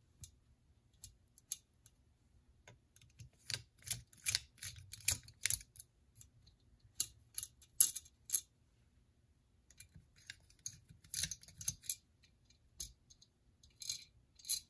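Light metallic clicks and taps in short clusters with pauses between: small screws and the aluminium engine side cover being handled as the cover's screws are taken out by hand.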